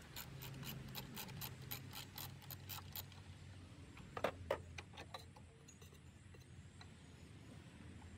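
Faint, rapid, even clicking, about four or five a second, that stops about three seconds in, then a few metallic clinks about four seconds in: a half-inch wrench being worked on the brake master cylinder nut.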